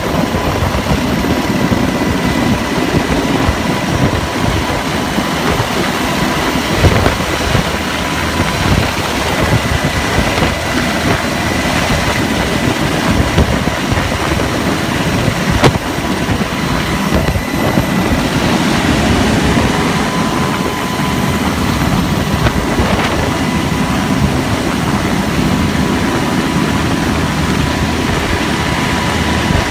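Navy MH-60S Seahawk helicopter hovering, heard from aboard: loud, steady rotor and twin turboshaft engine noise with a constant high whine running through it.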